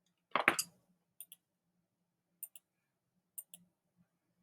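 Faint sharp clicks, mostly in pairs, coming about once a second, after a louder short cluster of clicks about half a second in.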